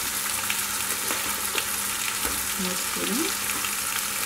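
Chopped capsicum and tomatoes sizzling steadily in hot oil in a frying pan, with scattered small crackles.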